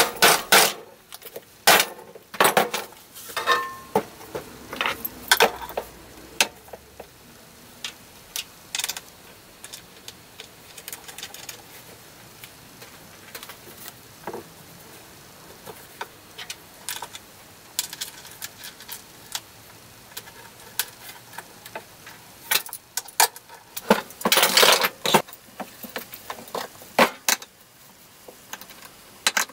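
Small metal hardware clicking and clattering against a polypropylene shield as a leather strap with a metal buckle is fitted by hand and with a screwdriver: scattered irregular clicks and knocks, with a denser run of them about three-quarters of the way through.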